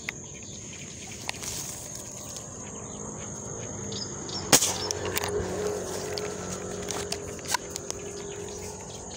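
A steady high-pitched insect drone, with handling rustles and a few sharp clicks; the loudest click comes about halfway through.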